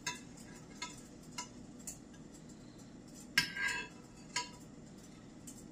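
Metal spoon stirring Jello mix in a glass baking dish, clinking against the glass a few times, loudest about three and a half seconds in, as the gelatin powder is dissolved in boiling water.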